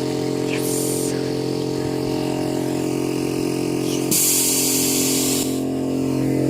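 Air compressor running with a steady hum. There is a short hiss of compressed air about half a second in, and a louder hiss of air about four seconds in that lasts over a second.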